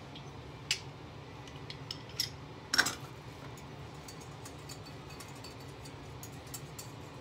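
Metal kitchen utensils clinking against a glass bowl of sauce: a few separate sharp clinks, the loudest about three seconds in, then faint light ticks of stirring.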